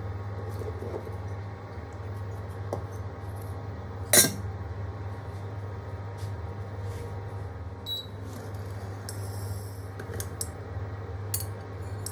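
Kitchen handling sounds: small clicks and clinks of utensils and dishes, with one sharp knock about four seconds in, over a steady low hum.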